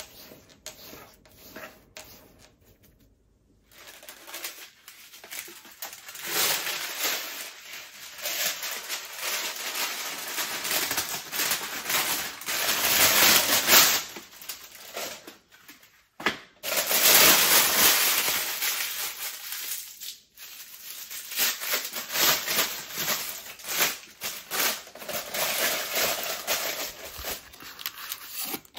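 Baking paper being pulled from its package and crumpled by hand, then pressed around a ball of bread dough: a dry, papery crinkling that comes and goes, loudest around the middle, after a few quieter seconds at the start.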